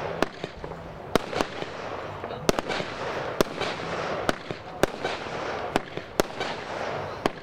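Aerial fireworks bursting: about a dozen sharp bangs and cracks at irregular intervals over a steady background noise.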